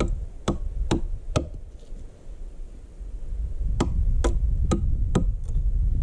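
A chisel being struck, chopping out wood to shape a recess for the door's pivot. Two runs of four sharp blows, about two a second, with a pause of about two seconds between them.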